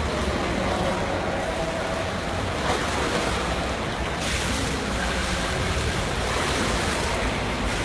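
Swimming pool water splashing and sloshing in a steady wash of noise as a swimmer swims laps.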